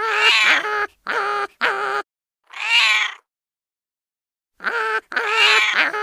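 Cat-like meowing: a run of short and longer wavering meows with dead silent gaps between them, the same run of calls starting over about four and a half seconds in.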